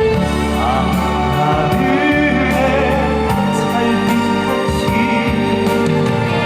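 Live stage music over a PA: a singer with vibrato over an amplified accompaniment.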